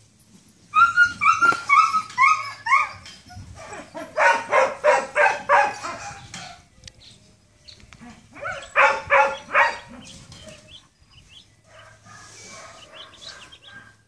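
A dog barking in three quick bouts: a run of high yelping barks about a second in, rapid barking from about four seconds, and another short burst near nine seconds.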